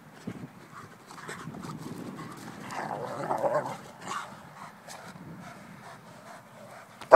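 Irish wolfhounds panting during rough play. There is a louder stretch about three seconds in and a short, loud sound just at the end.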